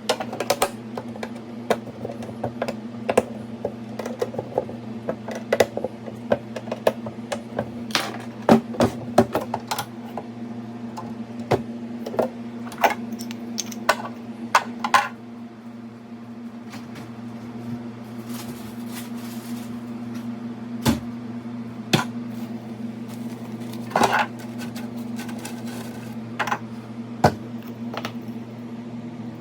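Hard plastic and small hardware parts being handled and fitted together: irregular sharp clicks and knocks, denser in the first half, over a steady low hum.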